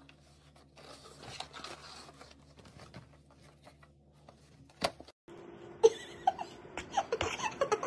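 Faint rustling and scraping of a small cardboard box as a cat pushes its head into it and walks about with it, with a sharp knock shortly before the cut. Then scuffing and knocks of a cat scrambling in a glass bowl on a table.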